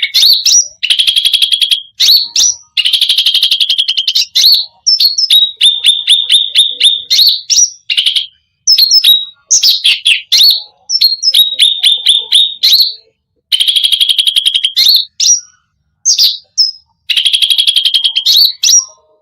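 Cucak rante songbird singing vigorously, with long fast trills and rapid runs of repeated high notes sung in phrases separated by short pauses; it is singing in full voice, its song filled in with varied phrases ('full isian').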